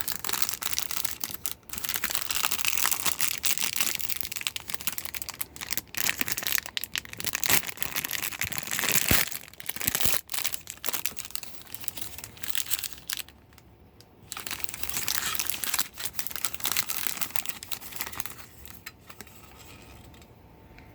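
Plastic packaging crinkling and rustling as it is handled and pulled apart, in stretches with a pause about two-thirds through, dying down near the end.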